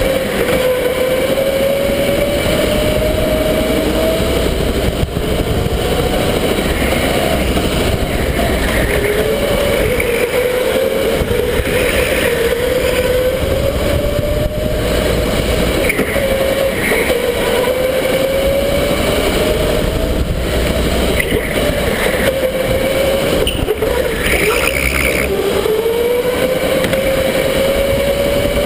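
Electric go-kart's motor whine over a steady rumble, repeatedly rising in pitch as the kart accelerates out of each corner and dropping back as it slows into the next.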